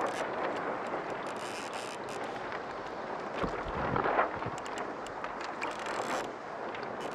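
Wind buffeting the action camera's microphone over the sea noise around the kayak, with a stronger gust about three and a half seconds in.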